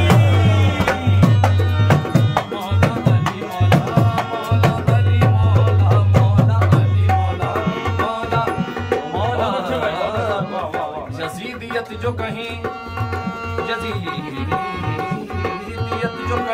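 Qawwali instrumental interlude: a harmonium playing a melody over a fast hand-drum rhythm, the drum's deep strokes heaviest in the first half and lighter after that.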